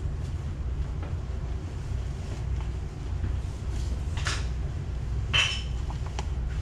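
A stick stirring and scraping thick resin putty in a plastic mixing cup, with two short scrapes about four and five and a half seconds in, over a steady low rumble.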